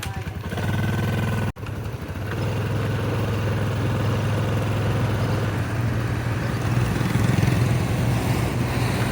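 Vehicle engine idling with an even throb, then running steadily under way, with a brief dropout about a second and a half in.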